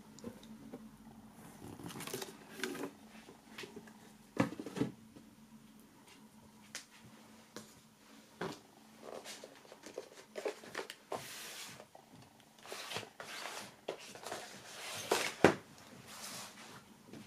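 Cardboard and plastic DVD packaging being handled: short rustles and slides with knocks as cases and a book are set down on a wooden tabletop. The loudest knocks come about four seconds in and again near the end.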